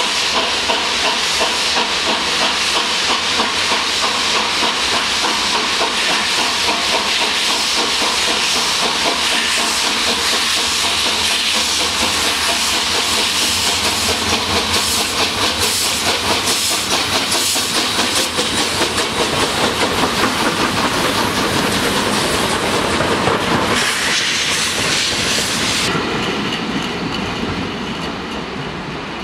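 Two steam locomotives double-heading a train at work, with exhaust chuffing, steam hissing and wheels clattering over the rail joints. The noise thins out and eases over the last few seconds.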